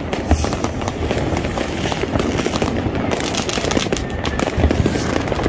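Many fireworks and firecrackers going off at once: a dense, continuous crackling of sharp pops, with a couple of deeper booms from bursting shells.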